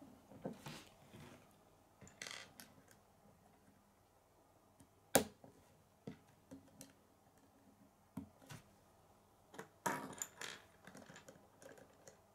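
Plastic K'nex rods and connectors being handled and pressed together: scattered light clicks and rattles, with one sharp snap about five seconds in the loudest.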